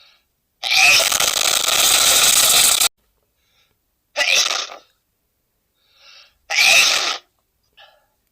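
A man sneezing loudly three times: a long drawn-out sneeze lasting about two seconds, then two short sharp sneezes a couple of seconds apart, with faint short sounds in the gaps.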